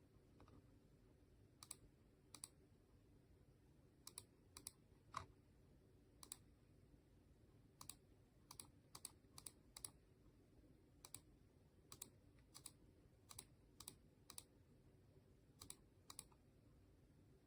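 Faint clicking of keys being pressed, about two dozen separate clicks at uneven intervals, over a low steady room hum.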